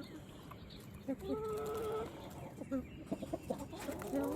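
Backyard chickens clucking close by. There is one drawn-out call a little over a second in, a few short sharp taps a little later, and another call that starts near the end and rises in pitch.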